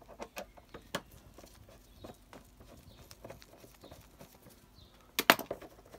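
Scattered light clicks and taps of hands handling things, with a louder clatter of several knocks about five seconds in.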